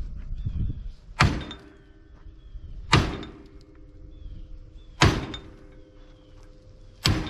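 A hammer striking the steel frame rail of a 1994 Ford Ranger four times, about two seconds apart, each blow followed by a short metallic ring. The rail is held under tension by a chained frame puller, and the blows help lock the straightened rail in place so it doesn't spring back.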